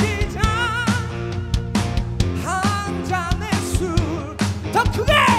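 Live rock band playing on a steady drum beat and bass, with a wavering melody line over it that glides upward near the end.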